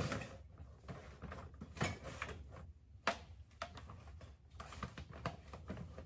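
Someone rummaging through belongings: rustling of a bag and clothes, scattered clicks and knocks, and a white plastic storage drawer being pulled open. A sharp knock comes right at the start and another about three seconds in.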